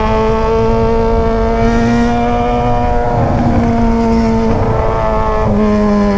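Yamaha XJ6's inline-four engine through a straight 3-inch stainless Atalla exhaust, running at steady revs on the road. Its pitch creeps up slightly, then dips a little about five and a half seconds in.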